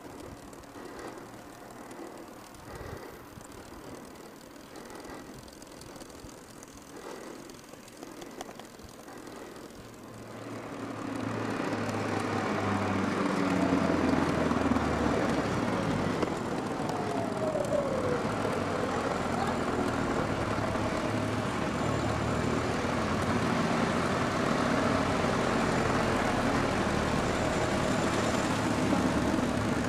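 Motor vehicle engine and road traffic noise. It grows much louder about a third of the way in and stays loud, with a falling pitch a few seconds later as a vehicle passes.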